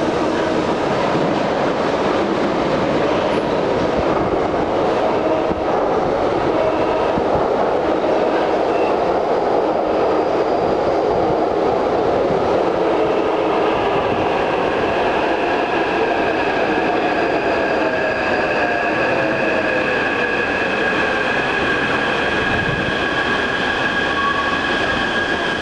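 Taipei Metro train running into an underground station and braking along the platform: a steady rumble of wheels on track. About halfway in, high steady squealing tones join, and a whine falls in pitch as the train slows.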